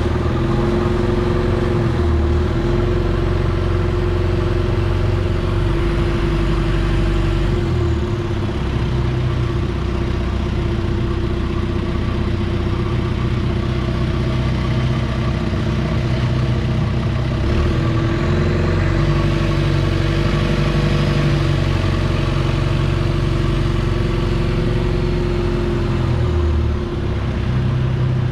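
Long-tail boat engine running steadily at cruising speed, a loud continuous drone with a few brief dips and shifts in pitch.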